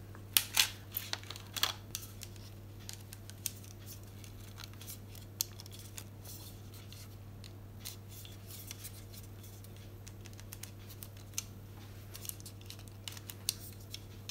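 Irregular clicks and scrapes of a Canon 50mm lens being gripped and twisted against a cheap macro extension tube's bayonet mount and locking catch: the lens is hard to get off, and the lock appears to have a problem. The clicks come thickest in the first two seconds and again near the end, over a faint low hum.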